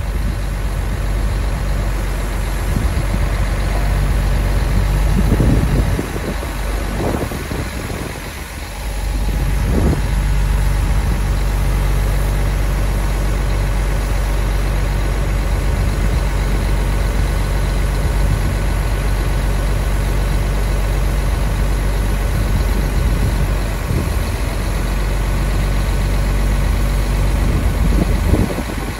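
Scania R124-420 tractor unit's 12-litre inline-six diesel engine running steadily, powering the truck-mounted HMF crane as the boom is folded down. The engine note dips briefly twice, about six and eight to nine seconds in.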